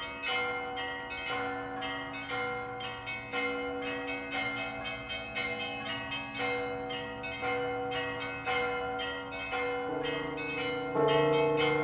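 Russian Orthodox church bells ringing an Easter peal: small high bells struck in quick succession, several strokes a second, with lower, louder bells joining near the end.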